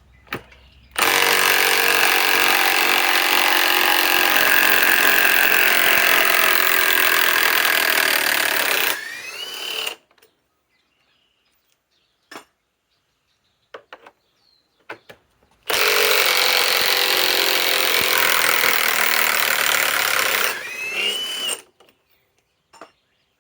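Milwaukee M18 Fuel Gen 2 mid-torque cordless impact wrench hammering long lag screws out of wood in two runs, about eight and six seconds long, each ending with a brief rising whine as it lets up.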